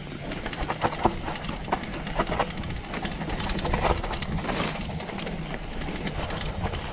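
Mountain bike riding on a dirt trail: tyres rolling over the ground, with a run of uneven clicks and rattles from the bike as it goes over bumps.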